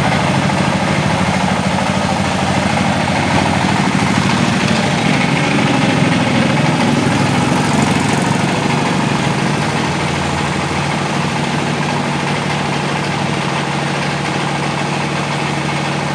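Diesel generator engine running steadily at idle, powering the sound system; it eases slightly about ten seconds in.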